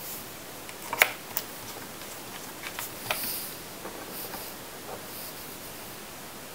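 Small clicks and taps as screws and fingers are handled on a MacBook Pro's aluminium bottom case: one sharp click about a second in, then a few fainter ticks and light rustles.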